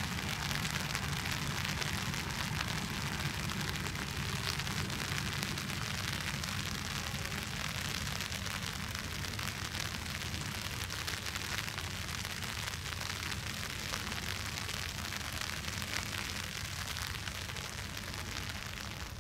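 Steady rain falling on an umbrella held over the camera, an even hiss, with a low rumble underneath that eases near the end.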